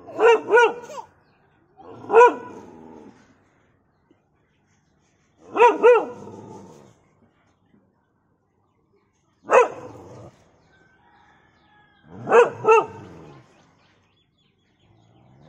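A dog barking in five short bouts of one to three barks each, with pauses of a few seconds between them.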